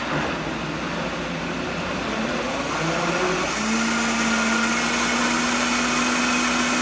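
Vitamix 5200 blender motor churning a jar of water, speeding up as the variable-speed dial is turned up toward high. It grows louder and higher over the first three or four seconds, then holds steady at the higher speed.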